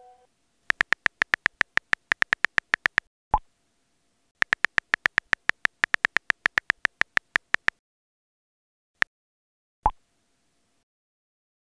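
Phone touch-keyboard key clicks in two rapid runs of about eight clicks a second as two chat messages are typed, each run ending with a short pop as the message is sent. A single tap sounds just before the second pop.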